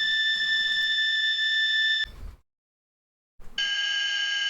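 AI-generated 'classic alarm' sound effect: a steady electronic buzzer tone that cuts off suddenly about two seconds in. After a short silence a second, slightly lower buzzer tone starts near the end. It is a continuous buzz rather than the beeping that was expected.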